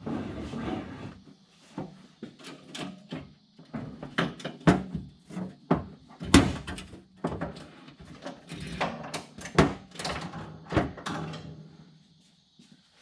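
Irregular metallic clicks and knocks of tractor hydraulic hoses and quick couplers being handled and connected to the rear remotes. They die away near the end.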